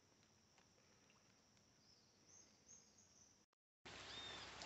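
Near silence with a few faint high chirps. After a cut about three and a half seconds in, steady rain falling on a river surface comes in as an even hiss, with a short high call over it.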